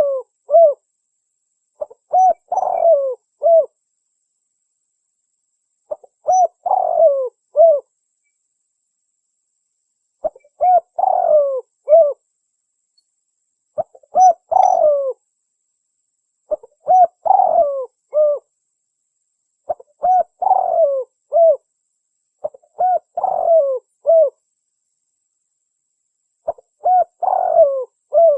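Spotted dove (derkuku) cooing, played as a lure call: a phrase of several mellow coos repeats eight times, every three to four seconds, with dead silence between phrases.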